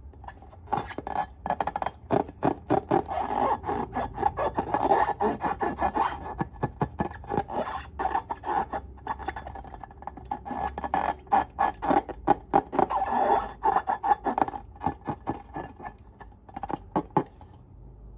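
Slime being kneaded and squeezed by hand: a dense run of rapid, sticky clicks and small pops that starts about a second in and stops shortly before the end.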